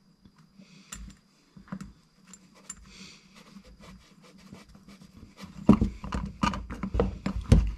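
Small metal clicks and scrapes from handling a snowmobile power valve assembly, then a run of louder knocks and clatter for the last two seconds as a folding hex key set works the Allen screws of the valve's keeper cap, snugging them only part way.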